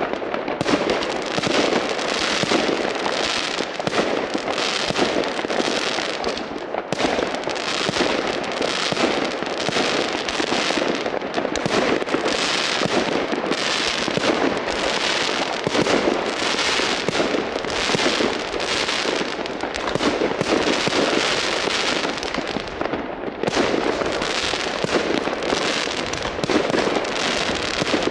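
Fireworks and firecrackers going off in a dense, continuous barrage of many overlapping bangs and crackles, with no let-up.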